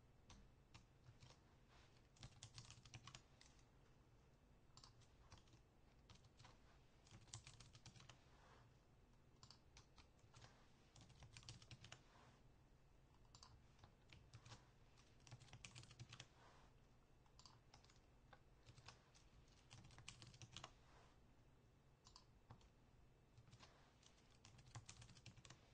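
Faint typing on a computer keyboard: irregular runs of quick key clicks with short pauses between them.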